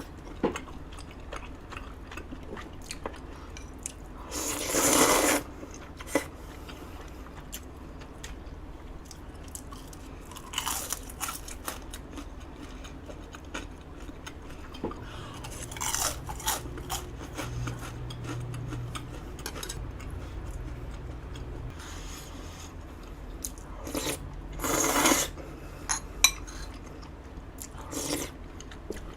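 Crunching and chewing of crispy deep-fried battered twigim (Korean tempura), with a few louder bites spaced out among many small crackles.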